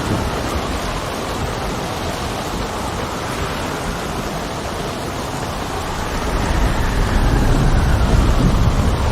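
Steady rain and wind noise with a low rumble that swells and grows louder about two-thirds of the way through.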